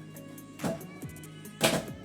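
Manual typewriter with a new platen, its keys striking once about a second in and in a quick cluster near the end, over background music.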